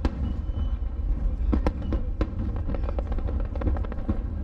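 Aerial firework shells bursting in quick succession: a continuous low booming, with sharp cracks standing out about one and a half and two seconds in.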